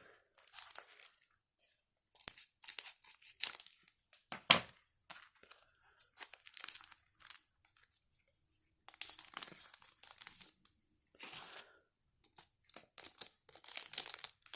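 Foil booster pack wrapper being torn open and crinkled by hand, in several separate bursts of rustling with short pauses between.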